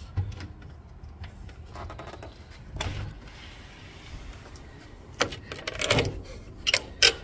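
A sliding window and its screen frame being handled: low rustling, then several sharp clacks and knocks in the last couple of seconds as the sash and screen are worked at.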